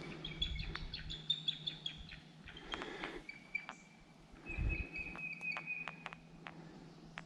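Bald eagle calling: a series of high, squeaky chirping notes, then a short twittering trill, with other birds around it.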